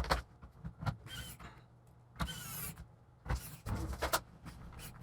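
A laptop and small tools handled on a bench: sharp clicks, two short rasping sounds about one and two seconds in, then a run of knocks and clatter.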